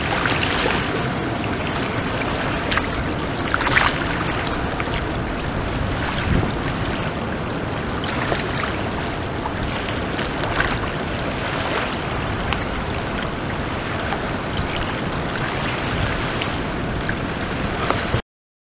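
Small river waves lapping and splashing against a sandy, pebbly shore over a steady rush of water, with a few louder splashes. The sound cuts off abruptly near the end.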